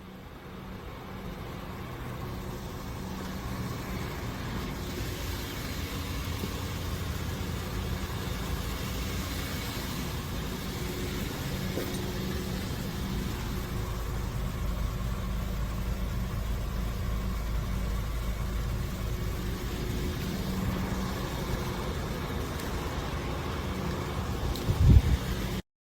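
Car running with a steady low hum, fading in at the start, with a short knock near the end before it cuts off abruptly.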